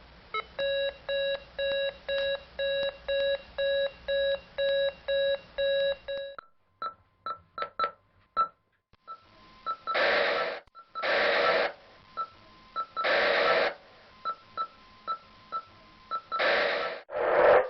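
Police two-way radio sounds: an electronic alert tone beeping about twice a second for roughly six seconds, then a few sharp clicks, then several loud bursts of radio static with short beeps between them.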